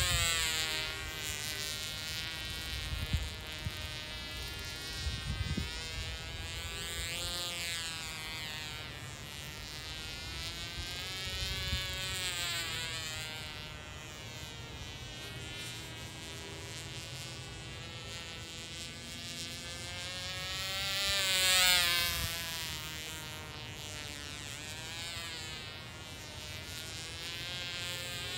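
Tiny .020 model glow engine on a Hitec Zipper RC plane buzzing in flight, its pitch swinging up and down as the plane passes and turns away. It is loudest on a close pass a little after twenty seconds in.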